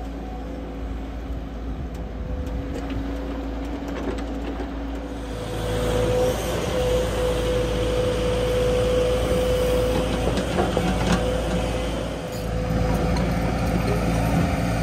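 JCB 145 tracked excavator's diesel engine running under load with a steady whine as it digs a trench. The sound grows louder about five seconds in, and a few short knocks come about ten seconds in.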